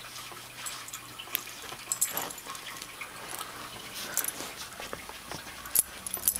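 A German Shepherd and a Chihuahua puppy wrestling on a fabric loveseat: scattered soft scuffles and rustles of paws and bodies on the cushions, with a sharp click near the end.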